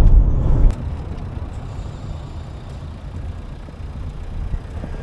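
Road noise inside a moving car, a loud low rumble that cuts off abruptly under a second in. A quieter steady low rumble follows.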